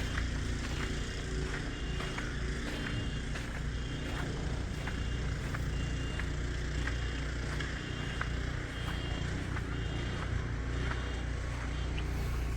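Engine running steadily, with scattered light clicks over it.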